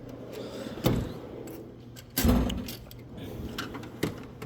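Steel hand tools clinking and rattling in the drawers of a Snap-on roll-cabinet toolbox, with drawers being shut and opened. A sharp clank comes about a second in, a heavier thump a little over two seconds in, and another knock near the end.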